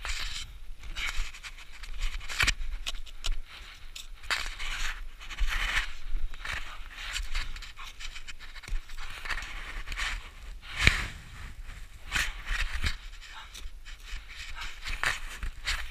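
A climber panting hard in rhythmic breaths while kicking steps and planting an ice axe in steep snow, the axe and boots crunching and scraping into the snow, with a few sharp knocks; the loudest comes about eleven seconds in.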